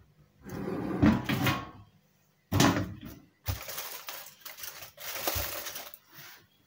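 Kitchen handling sounds: several bursts of rustling with a few knocks, as food, foil and dishes are moved about.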